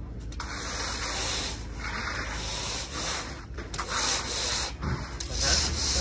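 Hand floats scraping back and forth over wet concrete as the slab surface is worked, in about four long scraping strokes.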